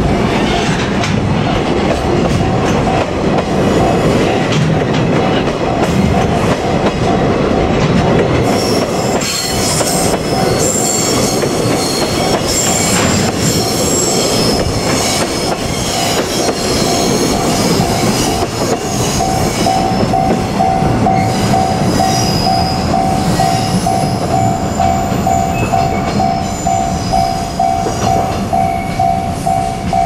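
Freight train container flatcars rolling past at close range, wheels clattering over the rail joints and squealing on the curve. Through it a level-crossing warning bell dings in a steady repeating rhythm, more prominent in the second half as the train noise thins.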